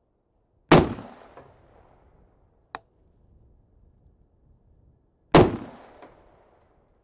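Two gunshots about four and a half seconds apart, each with a short decaying tail, and a single sharp tick between them.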